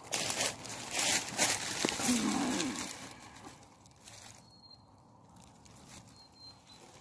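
Footsteps crunching through dry fallen leaves, quick and loud for about three seconds, then slowing to a few soft rustles. A brief low-pitched hum comes about two seconds in.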